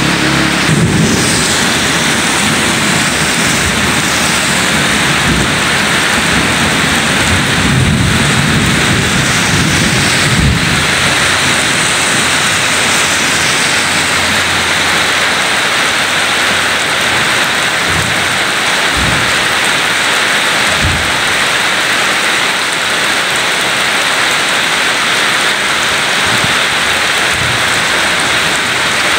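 Heavy rain falling on gravel and pavement, a steady dense hiss, with a low rumble under it through the first ten seconds or so.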